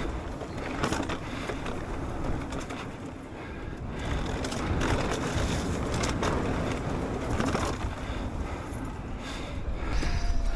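On-bike riding noise from a Propain Ekano 2 e-mountain bike on a trail descent: wind buffeting the microphone, tyres running over rough ground, and scattered clicks and knocks from a rattle somewhere on the bike.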